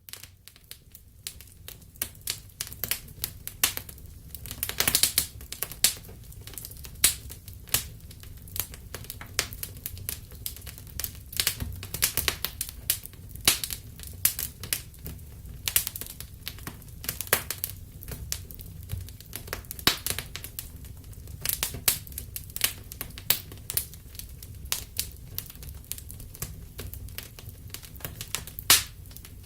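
Wood fire in a fireplace crackling: irregular sharp pops and snaps, several a second with louder ones now and then, over a steady low rumble of the burning.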